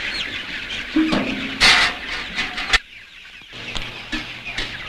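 A flock of chickens clucking and chattering in a henhouse, with a single sharp knock a little past the middle.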